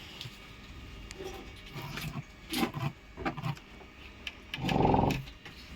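Tools and parts being handled while a large loudspeaker is reconed: scattered knocks and rubbing, then a louder rasping burst of about half a second near the end.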